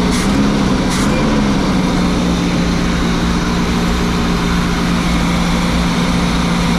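A motorhome's gasoline engine idling steadily and smoothly, purring after sitting more than ten years, with no knocks or odd noises.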